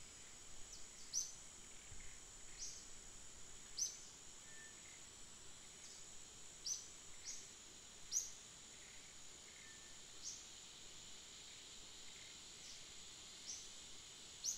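Faint steady high-pitched insect drone, with a dozen or so short, high chirps at irregular intervals.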